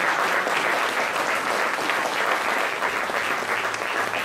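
An audience applauding: many people clapping, steady throughout.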